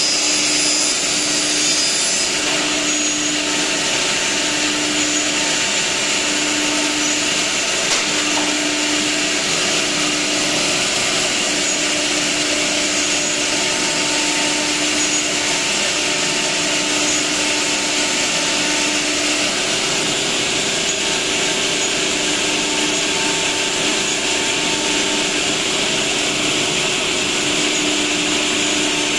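Ruinuo CNC router machining a wooden panel: a steady spindle whine over cutting and dust-extraction noise, with a lower tone switching on and off about once a second as the head moves. One higher whine stops about two seconds in.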